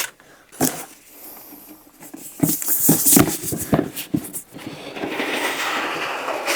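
Paper and cardboard packaging being handled: scattered light knocks and rustles, then a steadier rustling from about five seconds in.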